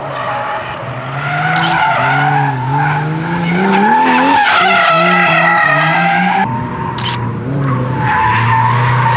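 Drift car sliding through a corner, its engine revving up and down while the tyres squeal and hiss, loudest near the middle. About six and a half seconds in, the sound changes abruptly to another stretch of engine and tyre noise. Two short sharp clicks stand out, about a second and a half in and again about seven seconds in.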